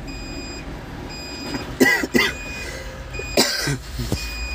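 Manitou telehandler's cab warning beeper giving short high beeps about once a second with the ignition on, just before the engine is started. A few short, louder noises come in the middle, and a low rumble builds near the end as the engine starts.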